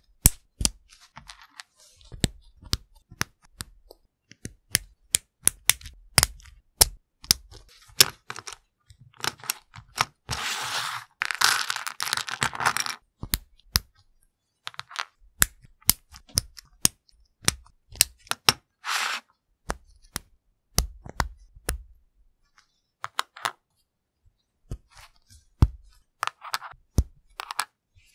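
Hard plastic LEGO Technic parts clicking and snapping as pins, axles and gears are pressed into beams and frames, in many quick separate clicks. About ten seconds in comes a few seconds of rustling, and shorter bursts of it later.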